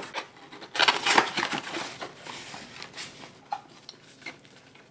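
Cardboard packaging handled and opened by hand: a burst of rustling and scraping about a second in, then lighter rustles and a few small taps as the flaps of a kraft cardboard box are pulled open.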